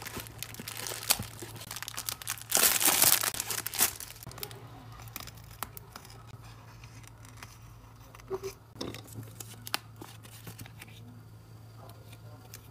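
Plastic mailer bag crinkling and tearing as it is opened, loudest for about a second and a half a few seconds in, followed by quieter rustling and clicks of taped cardboard and paper being handled. A faint steady low hum runs underneath.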